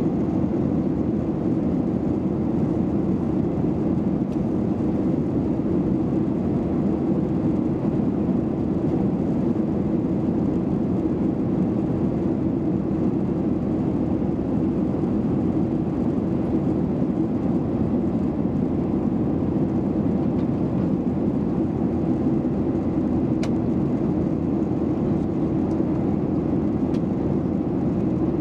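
Steady low drone of a passenger plane's engines and airflow, heard inside the cabin in flight, with a faint click late on.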